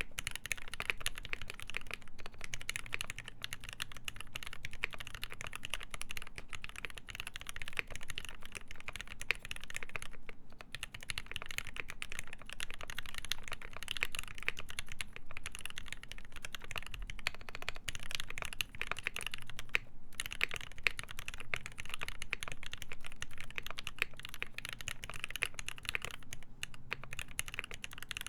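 Continuous fast typing on a mechanical keyboard with lubed ZealPC Tealios linear switches, a full brass plate and GMK keycaps, the case filled with foam. A dense stream of key presses, with brief pauses about ten and twenty seconds in.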